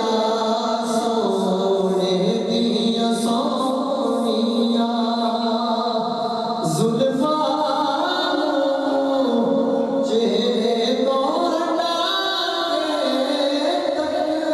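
Male voice singing a Punjabi naat without instruments, in long, drawn-out notes that glide up and down.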